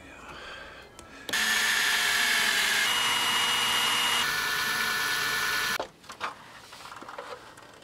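Cordless drill running at a roof fan's mounting flange: a loud steady whine for about four and a half seconds that changes pitch twice, then stops abruptly.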